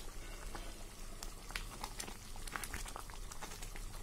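Thick halwa mixture of sugar and cream boiling hard in a wide pan, with many small irregular bubble pops. A spatula stirs through it.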